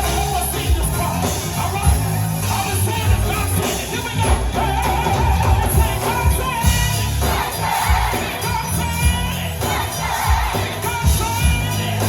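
Live gospel choir singing with a band, over a strong bass and a steady beat.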